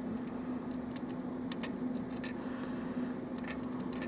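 A lock pick and tension wrench working in the keyway of a pinned Russwin lock cylinder during single-pin picking: several light, sharp metallic clicks, over a steady low hum.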